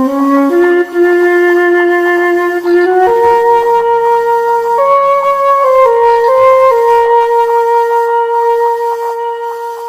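Background music: a flute-like wind instrument playing a slow melody of long held notes, fading a little near the end.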